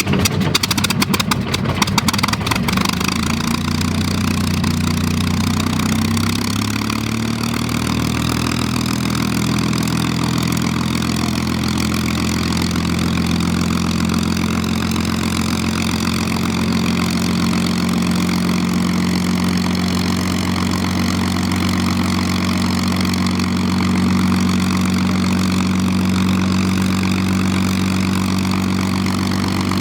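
A piston engine catches with a rapid crackle of firing over the first couple of seconds, then settles into a steady, even idle.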